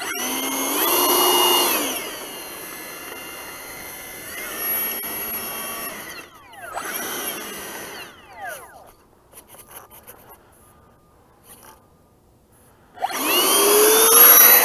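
Electric ducted fan of a Freewing F-86 Sabre RC jet being run up during pre-flight checks: a high whine that rises and falls over the first two seconds, then shorter bursts of throttle a few seconds apart. Near the end the fan spools up loudly as the throttle is opened.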